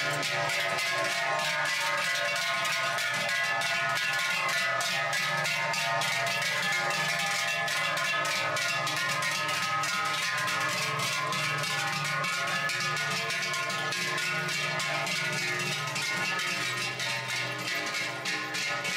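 Many large cowbells on a passing herd of brown cows clanging together as the animals walk, a dense, steady peal of overlapping bells.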